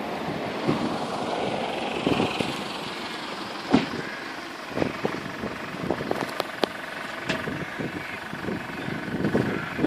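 A pickup truck drives up and stops, its engine then idling, with irregular thumps of wind buffeting the microphone.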